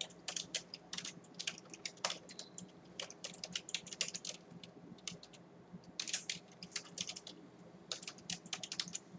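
Typing on a computer keyboard: quick runs of keystrokes with short pauses between them, over a faint steady hum.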